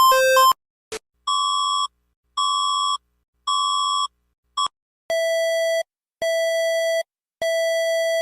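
Electronic emergency-alert tones. A fast warble alternating between a low and a high pitch cuts off about half a second in. After a click come three short high beeps about a second apart and a brief blip, then three longer, lower beeps.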